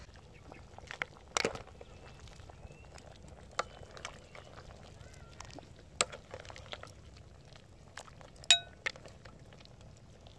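A metal ladle clinking against a stainless steel cooking pot and a ceramic bowl as soup is dished up: a handful of separate sharp clinks, the loudest late on with a short ring.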